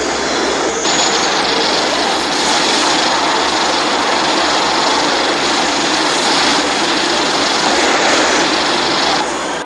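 Atomic-breath beam sound effect from a stop-motion Godzilla fight: a loud, continuous rush of noise that shifts slightly about a second in and stops just before the end.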